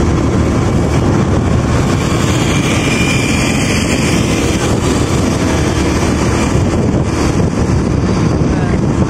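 A motorcycle being ridden: a steady, loud rush of wind across the microphone with the engine and road noise underneath.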